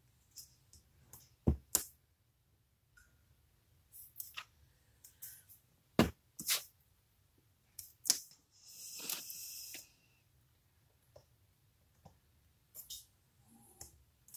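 Paper and card being handled on a craft mat: scattered light taps and clicks as pieces are picked up and set down, with a rustle lasting about a second a little after the middle.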